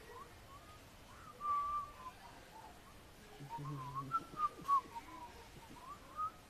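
A person whistling an idle, wandering tune in short notes that slide up and down in pitch, loudest a little past the middle.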